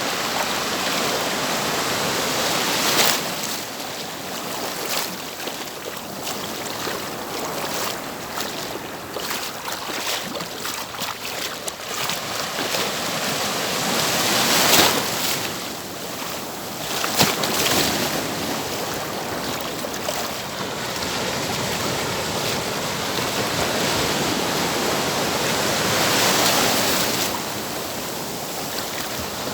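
Ocean surf: waves breaking and washing up the shore in a steady rush that swells and eases, with louder surges a few times.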